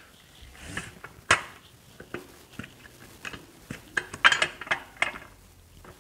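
Metal clicks and knocks as master cylinders are handled and pushed into place against a car pedal box: a sharp knock a little over a second in, scattered ticks, and a quick run of clicks around four seconds in.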